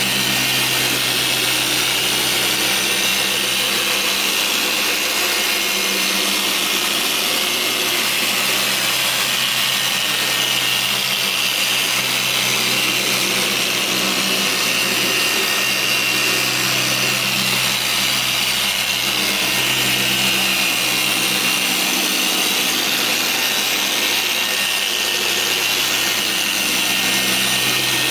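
Machine polisher running steadily, its foam pad buffing car paintwork during a paint-enhancement polish.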